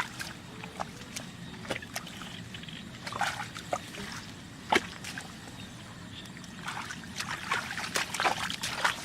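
Water sloshing, splashing and trickling in short irregular bursts, thickest near the end.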